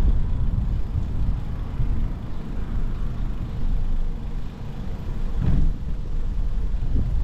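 Outdoor city ambience: a low, uneven rumble of distant road traffic, with a brief louder thump about five and a half seconds in.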